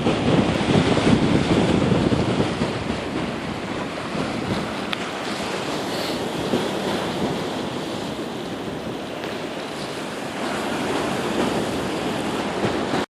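Lake Michigan waves surging against the pier under a strong gale, with the wind buffeting the microphone in a heavy, rushing roar that is loudest for the first couple of seconds.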